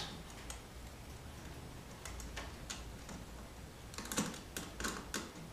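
Light clicks and ticks of a small screwdriver and wire against the screws of a screw-terminal barrier strip while a wire is set in a terminal. They are scattered at first and come thicker from about four seconds in.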